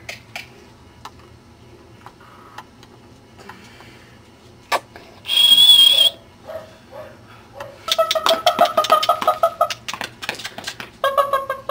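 Cardigan Welsh Corgi puppies yapping in quick runs of short high-pitched barks, with a single shrill high note lasting about a second roughly five seconds in.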